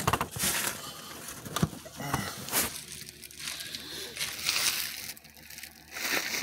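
Irregular rustling and handling noises, with a few sharp knocks, as a person moves about and handles things close to the microphone.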